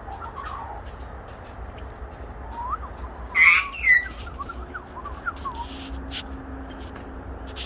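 Kookaburras squabbling: short rising chirps, then two loud harsh squawks about three and a half seconds in, with scattered sharp clicks.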